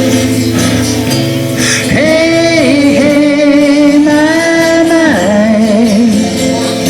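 Live band music with guitars and bass, and a singer holding one long note from about two seconds in until about five seconds in.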